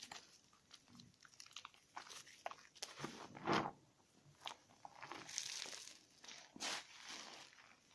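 A bar of 72% laundry soap being lathered by hand: a run of irregular short rubbing and crackling sounds, the loudest about three and a half seconds in and another near seven seconds.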